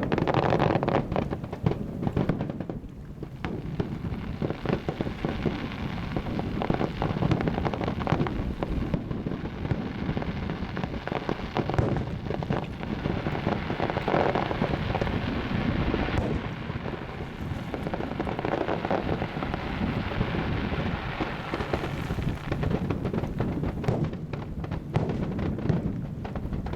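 Aerial fireworks display going off in a continuous barrage of many overlapping bangs and crackles over a low rumble.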